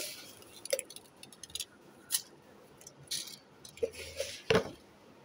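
Aquarium gravel clinking and rattling against a clear plastic jar as it is added, in scattered short clicks, with one louder knock about four and a half seconds in.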